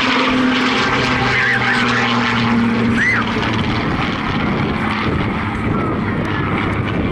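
Rolls-Royce Griffon V12 engine of a Spitfire PR XIX flying past overhead, a steady pitched drone that gives way about three seconds in to a rougher rumble as the aircraft banks away.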